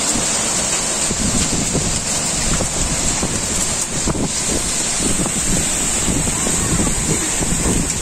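Heavy downpour with gusty storm wind; the gusts buffet the microphone, strongest after the first second or so.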